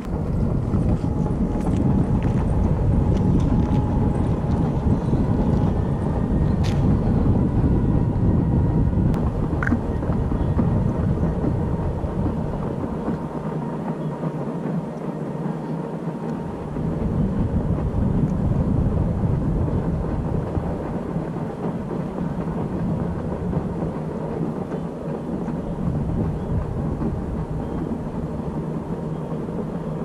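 Wind buffeting the microphone: a heavy, low rumbling noise that swells and eases in gusts and drops back for a few seconds near the middle.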